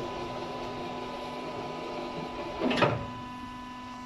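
Clamshell grab on a truck-mounted crane opening and dropping its load of coal onto the pile in one short rush about two and a half seconds in, over a steady mechanical hum.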